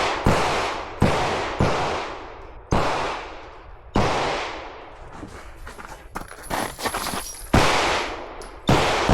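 Pistol shots fired through a competition stage: about seven sharp reports at uneven spacing, each with a long echoing tail. There is a gap of about three seconds in the middle, filled by small clicks and rattles.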